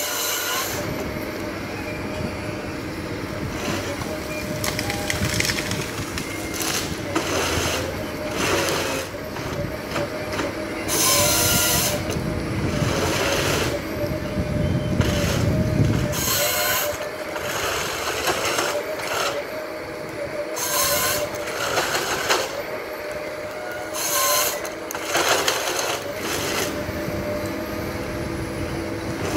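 Forest harvester with bogie tracks working under load: a steady whine from its engine and hydraulics, broken by repeated short bursts of the harvester head's chain saw cutting through the stem, and rattling and rumbling as the feed rollers pull the stem through the delimbing knives.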